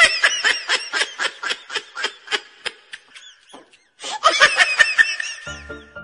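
Laughter in a quick run of ha-ha pulses, about five a second. It breaks off about three seconds in, starts again a second later, then gives way to music.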